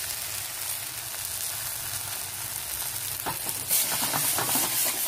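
Pita saag and brinjal sizzling in a wok, with a steady frying hiss. From about three seconds in, a metal spatula scrapes and stirs against the pan in short strokes, loudest near the end.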